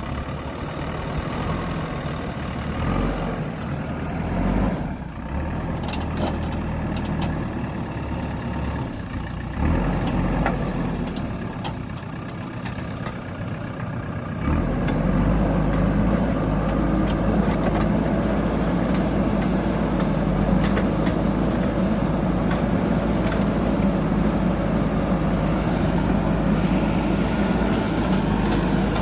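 JCB 3DX backhoe loader's diesel engine running, with a few light clicks and knocks. About halfway through it gets louder and heavier, as the machine comes under more load, and holds there.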